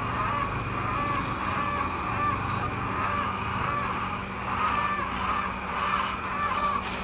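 A flock of chickens calling, many short arching calls overlapping and repeating without a break.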